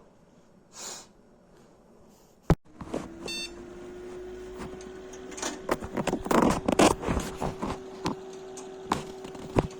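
Desktop PC switched on with a sharp click and a short beep, then a steady hum as it spins up, with irregular clicking from the hard drive; the clicking is taken for a failing hard disk or a weak power supply.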